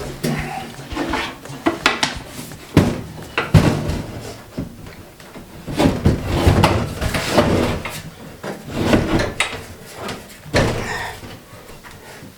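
Wooden frame being pushed and slid into a wall opening for a test fit: irregular wooden knocks and bumps mixed with scraping and rubbing.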